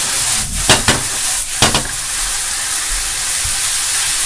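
Noodles and cabbage sizzling in a hot non-stick frying pan as they are stir-fried with wooden chopsticks, a steady high hiss. A few sharp clacks, the chopsticks striking the pan, come in two pairs in the first two seconds.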